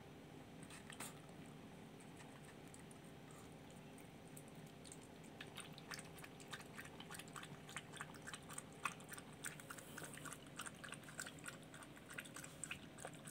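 A small puppy's mouth noises at its food and water bowls: faint for the first few seconds, then from about five seconds in a run of quick, irregular wet clicks of eating.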